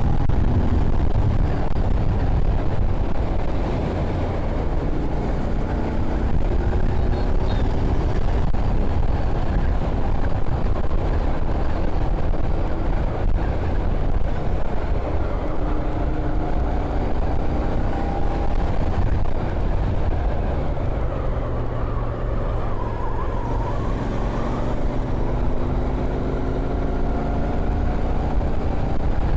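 Royal Enfield Continental GT 650's 648 cc parallel-twin engine pulling under open throttle, its pitch rising in several climbs as it accelerates through the gears. A heavy rush of wind on the microphone runs underneath.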